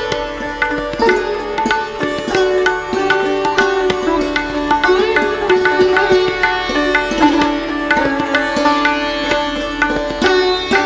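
Background instrumental music in an Indian classical style. A plucked string melody bends between notes over a steady drone, with light hand-drum strokes.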